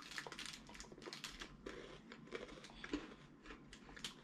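A person chewing a strawberry Kinoko no Yama chocolate snack, its cracker stem crunching in a run of faint, irregular small clicks.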